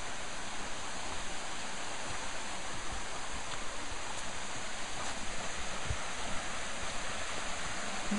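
Steady rush of a waterfall, an even hiss of falling water with no breaks.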